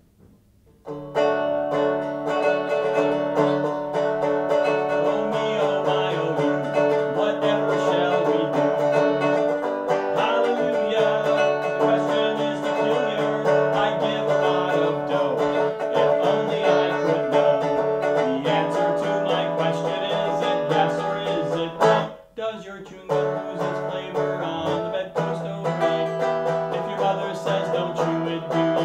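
Metal-bodied resonator guitar played in a lively rhythm, starting about a second in, with a brief break and a sharp strike about 22 seconds in.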